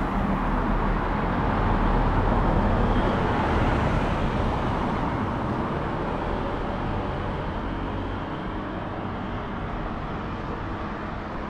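A car driving past on the street, its tyre and engine noise swelling a couple of seconds in and then fading away over a steady traffic hum.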